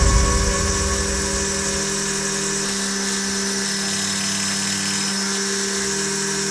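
CNC machine's spindle motor running steadily with a high-pitched whine and hiss, with a low rumble in the first second or so.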